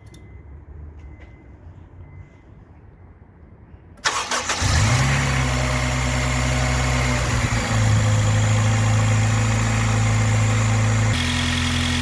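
Honda Civic Type R EP3's 2.0-litre four-cylinder engine cranking and starting about four seconds in, then idling steadily, drawing air through a freshly fitted Tegiwa induction kit. A few faint clicks come before the start.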